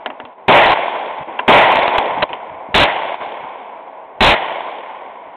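Four pistol shots from a 9mm Taurus PT 917C, spaced about one to one and a half seconds apart, each followed by a fading echo.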